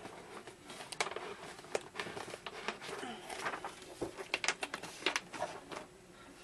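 Hands rummaging through items in an open cardboard box: soft rustling with a scatter of small clicks and crinkles as the contents and packing are shifted.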